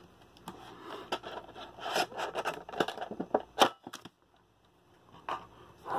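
Handling noise from a Pokémon card tin with a clear plastic insert: scattered clicks, scrapes and plastic crinkling as it is turned and gripped. The sound drops out for about a second after about four seconds, then a few more clicks follow.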